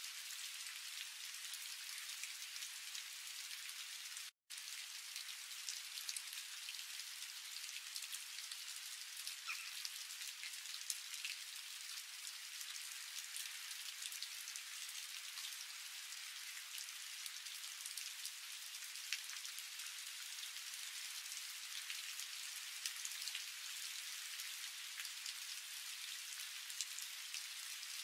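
Onions and curry leaves frying in oil in a non-stick pan: a steady sizzling hiss with scattered small crackles and pops. It cuts out for a moment about four seconds in.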